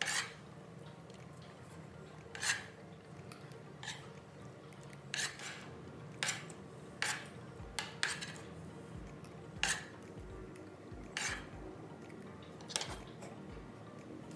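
Cutlery clinking and scraping against a dish while eating, about ten separate sharp clinks spread unevenly, over a low steady background hum.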